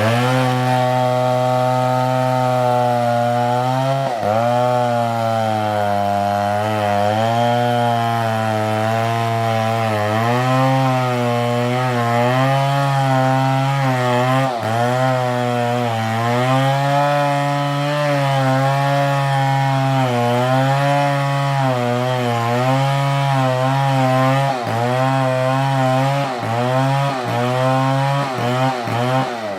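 Large two-stroke chainsaw, a Stihl MS720, cutting into a tree trunk under load. The engine runs loud and steady, its pitch sagging and recovering as the chain bites, with brief sharp drops in speed about 4 and 14 seconds in.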